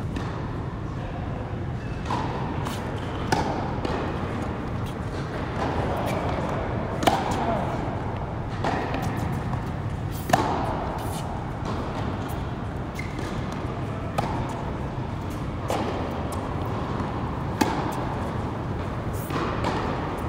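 Tennis ball struck by rackets and bouncing on an indoor hard court during a rally: sharp pops about every one to two seconds, echoing in the hall, over a steady low hum.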